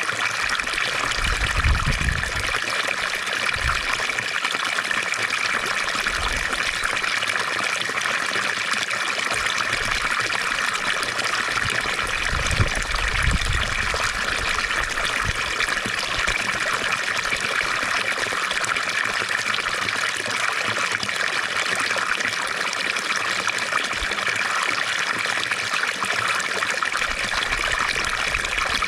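Fountain water splashing and trickling in a steady, unbroken flow. Two brief low rumbles come through about 2 seconds and 13 seconds in.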